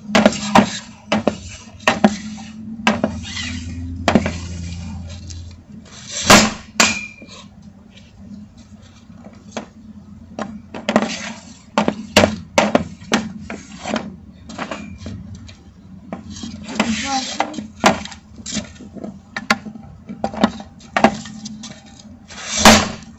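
Hockey stick with a wax-coated blade (no tape) striking and handling pucks on pavement beside the microphone: a run of irregular sharp clacks and clatters, with two much louder cracks about six seconds in and near the end.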